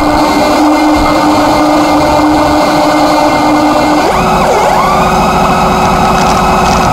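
Harsh noise music: a loud, dense wall of distorted noise over a steady drone. About four seconds in, a tone swoops down and back up like a siren and a fast rattling pulse comes in underneath.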